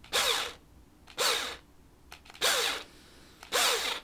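An electric drill is run in short taps of the trigger, spinning a mandrel that winds iron wire into a tight coil. There are four brief whirrs, about one a second, each dropping in pitch as it runs down.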